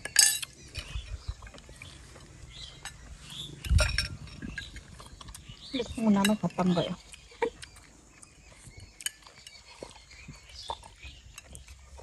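Scattered clinks of utensils against dishes while people eat, with a sharp click just after the start, a low bump near four seconds and a short burst of voice about six seconds in.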